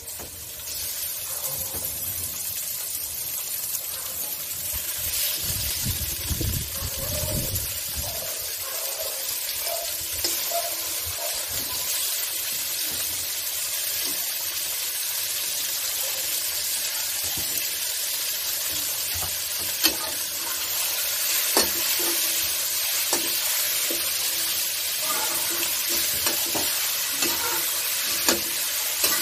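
Cubed raw pork sizzling in hot oil in a metal wok with garlic and onions, a steady frying hiss that starts as the meat goes in. In the last third a metal spatula stirs it, with a few sharp knocks and scrapes against the wok.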